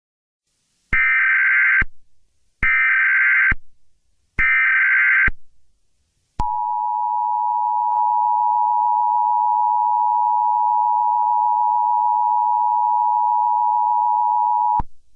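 Emergency Alert System tones: three one-second bursts of SAME header data, about a second apart, then the two-tone attention signal held steady for about eight seconds before it cuts off. Together they announce a new emergency alert.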